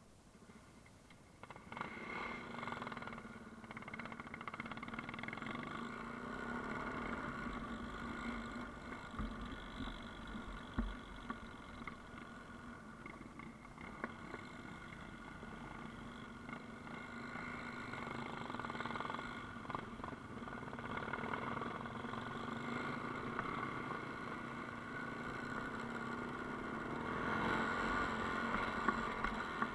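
Yamaha Ténéré motorcycle's engine running under way, coming in about a second and a half in and holding a steady note, getting louder near the end.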